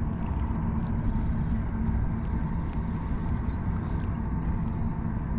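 A motor running steadily with a low hum, and a run of about five short high chirps two to three seconds in.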